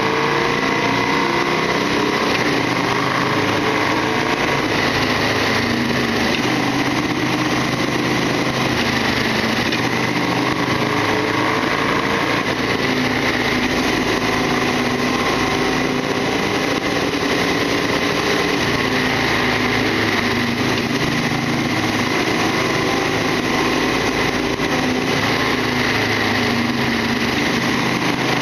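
Harley-Davidson Sportster XL1200R's V-twin engine running steadily under way, its note drifting gently up and down with the throttle, over a continuous rush of riding noise.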